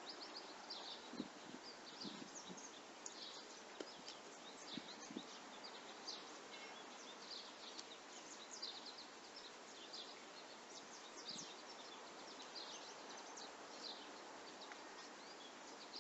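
Quiet outdoor background with birds chirping: many short, scattered chirps throughout, over a faint steady hiss.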